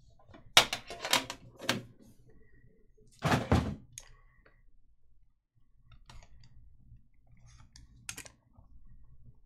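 Cardboard trading-card boxes being handled: a few light knocks and clicks as the lid comes off and the yellow inner box is lifted out, then a dull thud about three seconds in as the box is set down on the table mat. One more click comes near the end.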